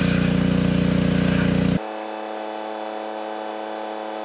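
Pressure washer running, a steady engine drone with the hiss of the spray. It cuts off abruptly about two seconds in, leaving a quieter steady hum.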